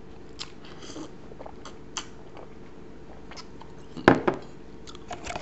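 A person gulping and swallowing as they drink from a glass, with small mouth clicks, then a single sharp knock about four seconds in as the glass is set down on the table.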